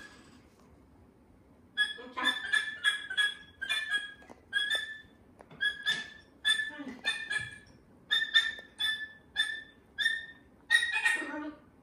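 A cockatoo chewing apple with its beak: starting about two seconds in, a long run of short, crisp crunches and beak clicks, two or three a second.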